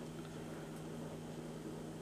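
Quiet room tone with a low, steady hum.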